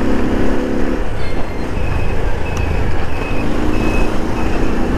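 Motorcycle engine running while riding through town traffic, with low wind rumble on the microphone. The engine hum fades about a second in and comes back near the end, and a run of short high beeps, about two a second, sounds in the middle.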